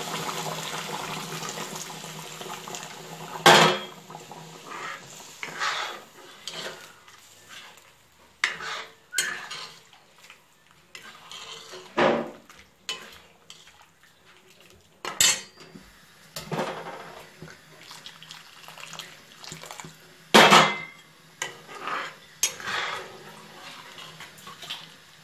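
Steel ladle clanking and scraping against a black wok as a thin curry is stirred, in irregular strikes a second or more apart. A hiss of the freshly added hot water simmering fades over the first few seconds.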